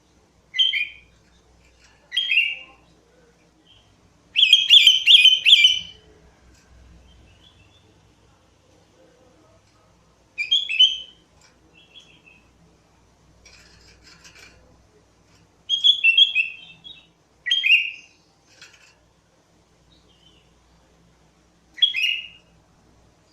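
Sooty-headed bulbul (kutilang) singing: short song phrases a few seconds apart, with one longer run of rapid notes about four to six seconds in.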